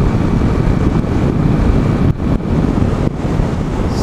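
Heavy wind buffeting on the microphone from a motorcycle at speed, with the Honda CG 150's single-cylinder four-stroke engine running hard underneath during a top-speed run.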